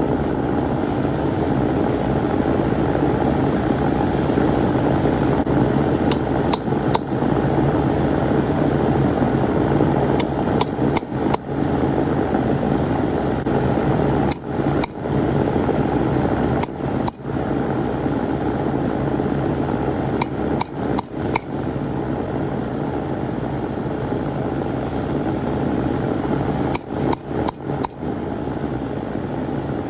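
Blacksmith's hammer striking hot steel on an anvil in short groups of blows, over a steady roar that runs throughout.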